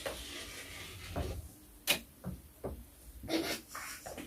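Light clicks and taps of small plastic game pieces being handled: one sharp click just under two seconds in, then a few softer clicks and rustles.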